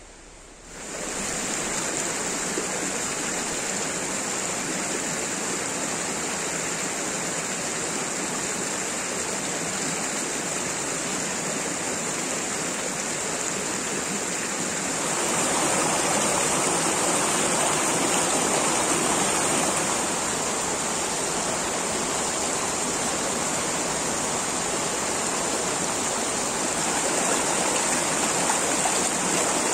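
Mountain stream rushing over boulders, a steady wash of water. It comes in about a second in and grows louder about halfway through.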